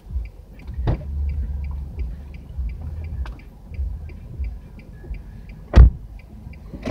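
Inside a stopped car with the engine idling low, a car door slams shut just before six seconds in; the slam is the loudest sound. A light ticking repeats a few times a second throughout.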